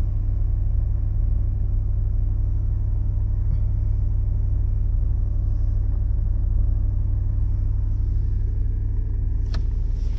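Gasoline car engine idling steadily just after a fresh oil change, with a clattery note that makes it sound like a diesel though it isn't one. A single sharp click near the end.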